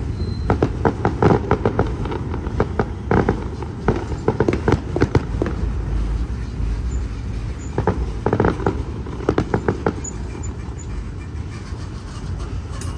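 Freight train cars rolling past with a steady low rumble, their wheels clicking over the rail joints in quick clusters of sharp clicks.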